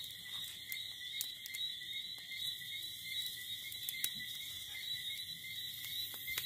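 Steady outdoor chorus of night-calling insects and frogs: a continuous high ringing at two pitches, with scattered faint clicks.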